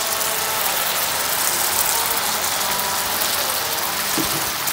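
Coconut milk and spices frying in a hot frying pan, a steady sizzling hiss, with a short knock of a spatula in the pan about four seconds in.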